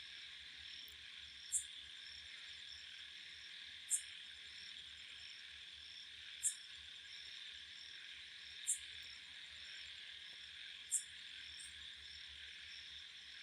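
Faint chirping of crickets or similar insects: a steady shrill chorus with a sharper high chirp about every two and a half seconds.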